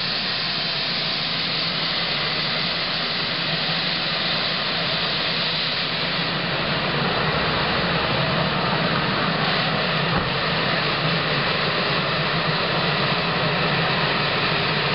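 Jay Leno's EcoJet's gas turbine engine, a Honeywell helicopter turboshaft, running with a steady jet-like hiss and a low hum, getting a little louder about halfway through.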